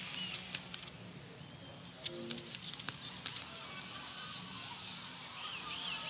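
Animated-film sound-effects track without music or dialogue: an outdoor ambience with scattered light clicks, a short pitched call about two seconds in, and faint high chirps rising and falling near the end.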